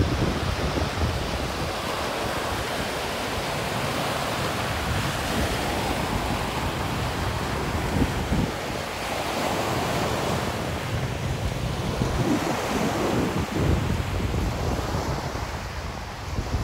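Wind buffeting the microphone over a steady rushing wash of sea surf that swells and eases a few times.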